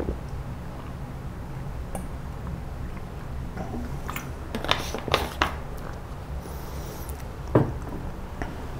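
Room tone: a steady low hum, broken by a few sharp clicks and knocks, a cluster of them about four to five and a half seconds in and one louder knock near the end.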